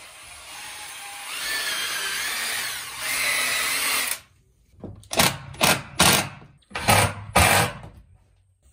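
Cordless drill running into a wooden 2x2 board. It makes one continuous run of about four seconds with the motor pitch wavering, then five or six short bursts on the trigger.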